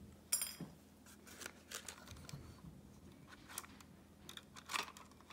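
Light clicks and rustles of a plastic instrument-cluster housing and its circuit board being handled and taken apart, with a sharp click and a short high ring near the start.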